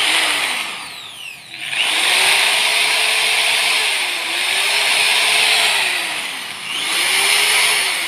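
Corded electric drill run free off a DC-to-AC power inverter on a car battery. Its motor whine falls away about a second in, spins back up, then dips and picks up again twice more as the trigger is eased and squeezed.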